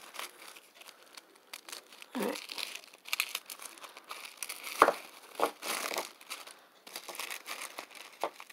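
Tissue paper crinkling and rustling in irregular bursts as a candle is unwrapped, with tape tearing loose and a few sharper crackles.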